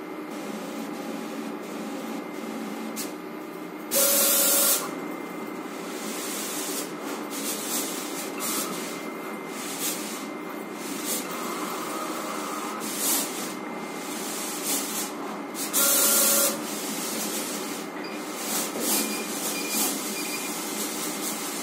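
GCC Jaguar vinyl cutting plotter at work, its motors whirring as the carriage and rollers move the cutting head and the printed vinyl sheet back and forth. Two louder rushing bursts of under a second come about four seconds in and again about sixteen seconds in.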